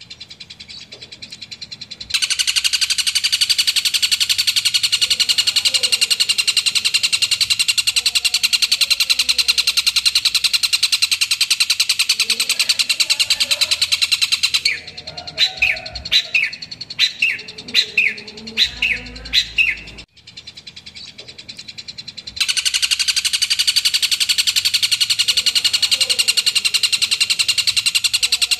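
Long-tailed shrike (cendet) in full song: a loud, fast, unbroken chatter of rapid notes. About halfway through, it gives way to a string of about ten separate sharp, falling call notes. After a short break, the chatter starts again.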